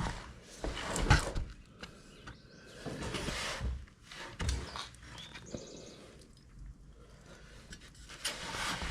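Scattered knocks, clunks and scrapes of hands and tools working at the motorcycle's engine while a drain plug is fitted, the loudest knock about a second in.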